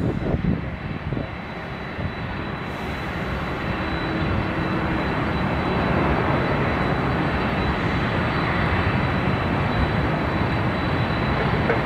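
Jet airliner engines, heard as a steady rushing noise that builds over the first several seconds and then holds level.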